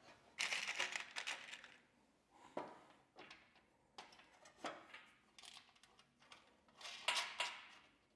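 Floorboard plates and their fastening hardware being handled and fitted together: a few separate bouts of clattering and scraping with short pauses between.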